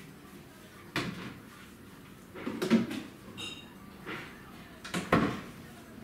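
Kitchen cupboard doors and things being handled at the counter: a series of separate knocks and clatters, about six in all, with a short high ring about halfway through.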